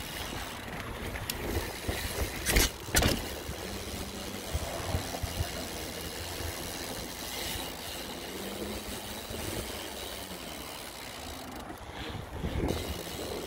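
Mountain bike ridden over a trail, heard through a handlebar-mounted phone: a steady rough rumble of tyres and rattling bike, with two sharp knocks about two and a half and three seconds in.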